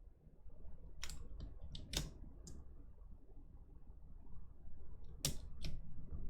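Scattered sharp plastic clicks from handling mechanical keyboard parts: a quick run of about five clicks a second in, then two more about five seconds in.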